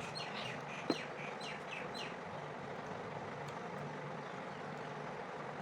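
A bird calling with a quick series of short, falling chirps for about two seconds, over a steady background hiss, with one sharp click about a second in.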